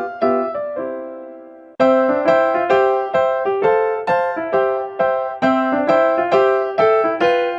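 Background piano music: a run of struck notes, about three a second, with a held chord fading away about a second in before the notes start again.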